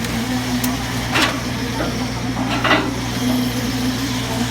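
A heavy diesel engine of the concrete-pouring equipment runs at a steady speed, with two short knocks about one and three seconds in.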